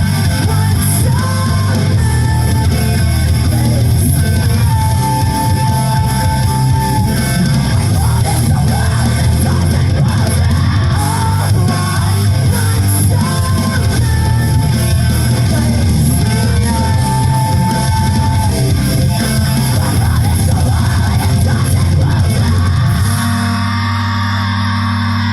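Rock music with electric guitar and bass guitar, loud and continuous; near the end it settles into held low notes.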